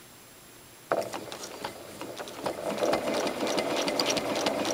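Janome 6600 domestic sewing machine stitching free-motion quilting with a ruler foot. It starts suddenly about a second in as a rapid run of needle ticks and grows louder over the next couple of seconds.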